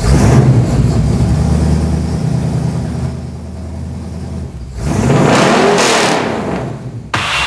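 A motor engine running with a deep steady note, then revving up and falling back about five seconds in. Another loud sound cuts in abruptly near the end.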